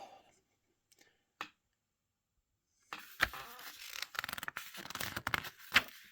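Paper pages of a small CD booklet being handled and turned, with crisp rustling and crinkling. It starts about three seconds in, after a near-silent pause broken by two small clicks.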